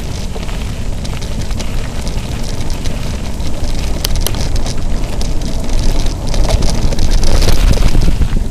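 Mountain bike riding a dirt singletrack: a dense rumble of wind on the microphone and tyres rolling over dirt, with many small clicks and rattles from the bike. It grows louder about six seconds in.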